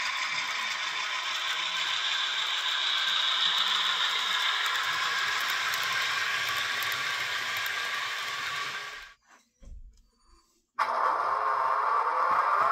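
HO scale model diesel locomotive running along the track, its motor and gears whirring with a rattle of wheels on rail. About nine seconds in the sound cuts to near silence; then the Athearn Genesis CSX SD80MAC model's sound decoder starts a rising whine.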